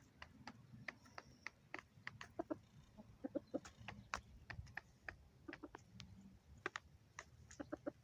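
Chickens pecking at feed: quick, irregular taps of beaks, several a second, with a few soft low clucks.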